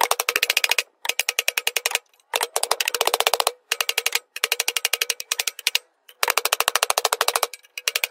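Hammer pounding the steel resonator of an aftermarket exhaust in quick runs of blows, about seven runs with short pauses between, each blow ringing the metal. The resonator is being dented in so it clears the driveshaft it was rubbing against.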